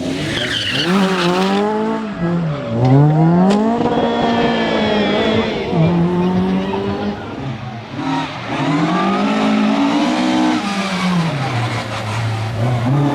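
Rally car engine revving hard and dropping back over and over as it is driven on a stage. The note climbs and falls every couple of seconds, sitting low and steady for a moment near the end before climbing again.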